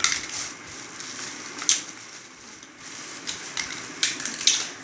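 Thin plastic bag crinkling and rustling as it is handled, with sharp crackles about a second and a half in and again near the end.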